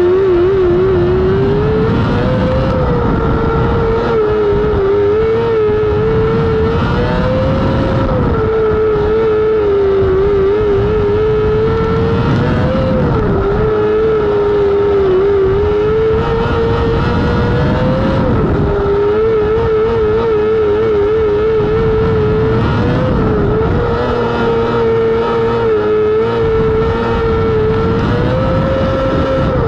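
Non-wing micro sprint car's engine at racing speed around a dirt oval. The note climbs and holds high on each straight, about every five seconds, then drops and warbles with throttle and wheelspin through each turn.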